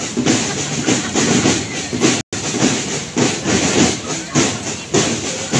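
Rhythmic beating from a marching procession of costumed soldiers, short hits about two to three a second, with crowd voices underneath; the sound cuts out for an instant a little over two seconds in.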